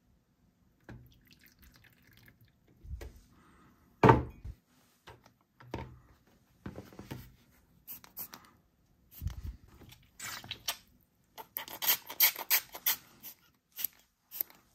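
Hard plastic parts of a Mack hauler paint-shop toy playset being handled and fitted together, making scattered clicks, taps and knocks. There is a sharper knock about four seconds in, and a quick run of clicks near the end.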